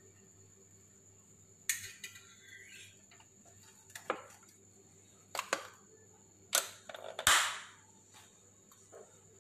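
Electric waffle maker's plastic lid being lowered and latched shut: a few sharp clicks and knocks, the loudest about seven seconds in, followed by a brief hiss.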